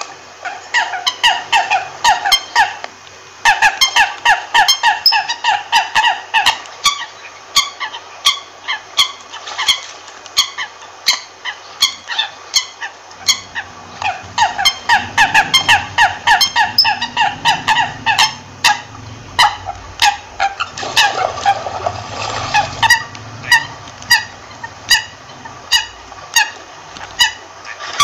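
American coots calling: rapid runs of short, clucking notes, about three to four a second, with a brief pause about three seconds in. A low rumble sits under the calls through the middle part.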